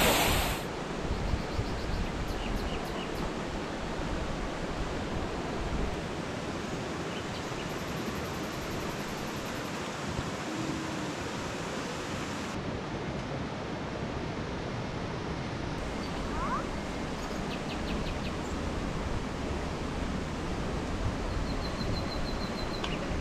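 Steady rushing outdoor noise, with a few faint short high chirps.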